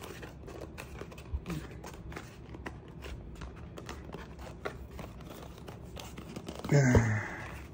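Unpacking a red dot sight by hand: faint rustling and scraping of its packaging, with scattered light clicks and taps. A brief vocal sound comes near the end.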